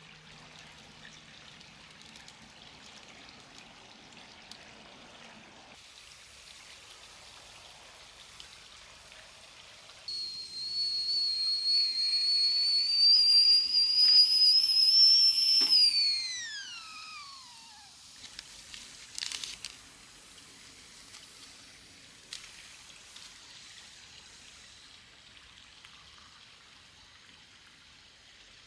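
Whistling kettle sounding loudly for about six seconds, its high pitch creeping slightly upward, then sliding down and dying away as it comes off the boil. A brief clatter follows soon after.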